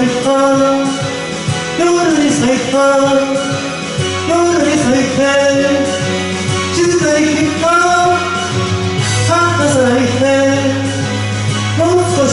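A man singing a Japanese pop song into a karaoke microphone over the backing track.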